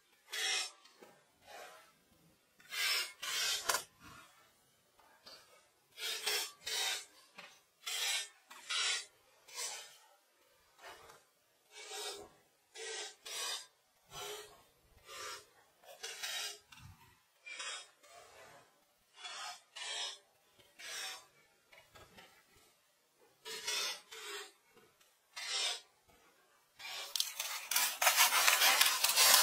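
Pencil scratching on drawing paper: a series of separate short strokes with brief pauses between them. Near the end it turns into a denser, louder continuous scratching.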